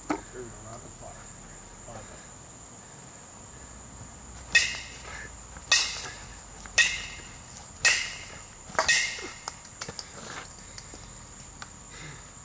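Baseball bat hitting soft-tossed balls into a net: five sharp hits about a second apart, each with a short ring.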